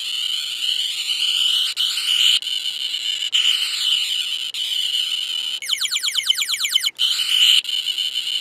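Tiger Electronics Thunder and Lightning Captain Planet action figure playing its electronic power sound effects through its small built-in speaker. It is a cycle of high-pitched synthesized tones that sweep up and down, with a quick run of rapid rising zaps a little past halfway.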